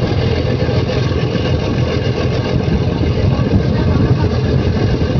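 A boat's engine running steadily, a low rough rumble with no breaks.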